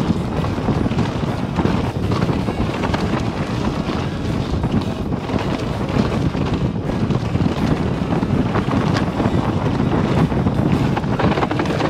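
Wind rushing over the microphone of a mountain bike descending a dirt trail, with the tyres rolling over dirt and leaves and the Scor 4060 ST full-suspension bike's frame, chain and suspension rattling and knocking over bumps.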